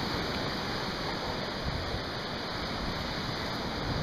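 Steady rushing noise of wind on the microphone mixed with Lake Michigan surf washing ashore.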